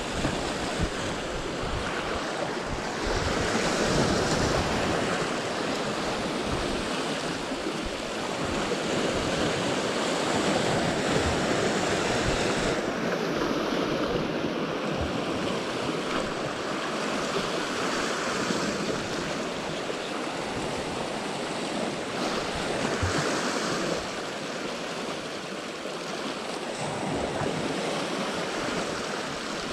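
Sea waves washing in, rising and falling in slow surges every few seconds, with wind buffeting the microphone.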